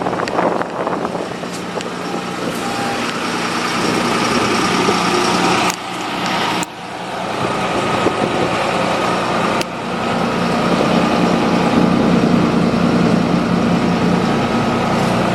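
Medium-duty truck engine idling steadily. There are brief sudden dips in level about six seconds in and again near ten seconds.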